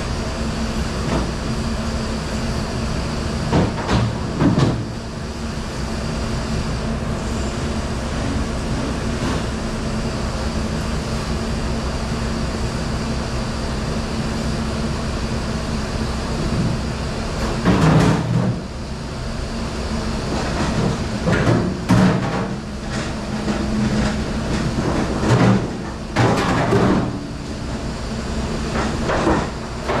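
Commercial conveyor dishwasher and dish-room machinery running with a steady hum, broken by several clatters and knocks, the loudest about 18 seconds in.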